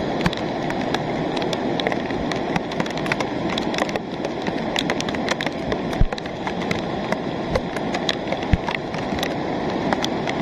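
Steady rush of a rain-fed lahar flood on Mount Semeru: a torrent of muddy water and volcanic sand pouring down the channel. Scattered sharp ticks sound over it throughout.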